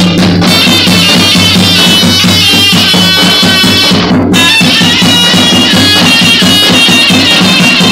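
Zurna, a loud double-reed folk shawm, playing a fast, ornamented melody over a steady low drone, with a drum beating underneath. The melody breaks off briefly about four seconds in, then carries on.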